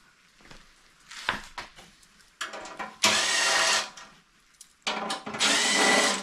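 Ridgid cordless drill-driver running in two bursts of about a second each, a whining motor turning bolts out of a steel bumper. A light clack comes between the bursts.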